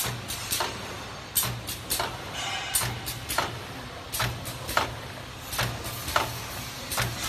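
Automatic bag making machine running, with a pair of sharp clacks repeating about every one and a half seconds as it cycles, over a steady low machine hum.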